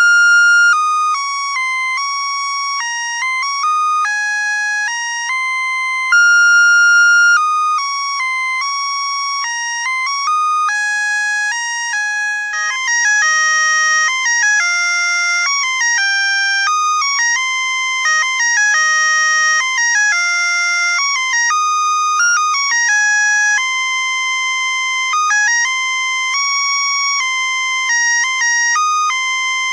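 Melody chip of a string of musical Christmas lights playing a tinny electronic tune in plain beeping tones, one note after another, high-pitched with nothing low. Through the middle it turns busier, with two notes sounding together.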